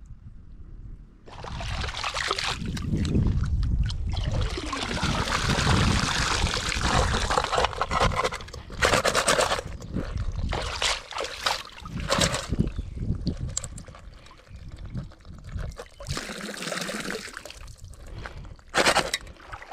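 Water sloshing and pouring as a metal pot of live swimming crabs is dipped and rinsed in shallow lagoon water. There is a long slosh over the first several seconds, then shorter splashes.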